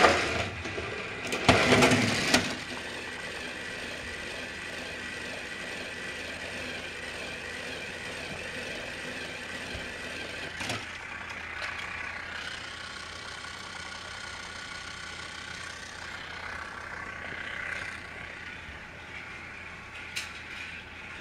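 Battery-powered Trackmaster toy train's motor whirring steadily, its whine shifting a little in pitch now and then. A loud clatter comes in the first two seconds, and there are a couple of light clicks later.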